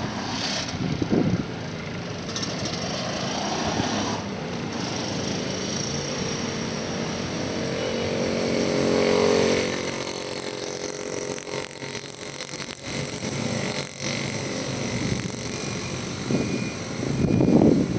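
Street traffic: a motor vehicle's engine passes, growing louder to about nine seconds in and then fading, over steady outdoor street noise.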